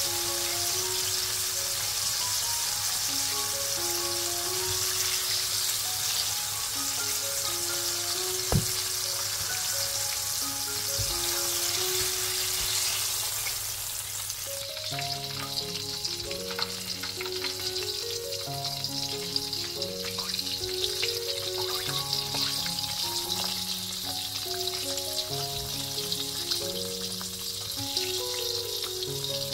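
Chicken wings deep-frying in hot oil in a wok: a steady hissing sizzle that turns more crackly about halfway through, with one sharp tap about a third of the way in. Background music with a simple melody plays underneath.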